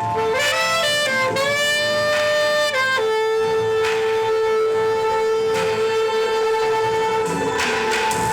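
Saxophone playing a slow melody over a backing arrangement: a phrase that slides up into a held note, then one long sustained note of about four seconds, with soft beats and pads underneath.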